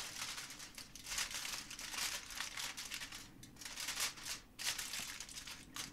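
Aluminium foil crinkling as hands press and crimp it down over the rim of a baking dish, in short, uneven spells of crackling.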